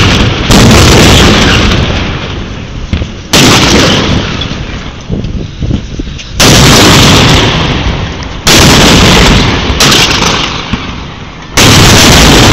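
Cannons firing, six loud booms one to three seconds apart, each dying away over a second or two.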